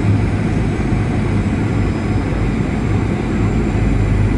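Steady airflow and engine noise on the flight deck of a Boeing 737-800, with a constant low hum underneath.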